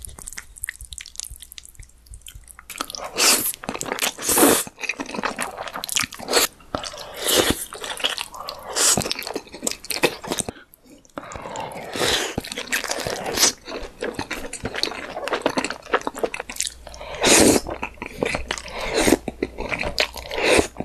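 Close-miked eating of cream-sauced noodles: slurping, chewing and wet mouth sounds in a run of loud bursts. It is quieter for the first couple of seconds, with a short pause about halfway.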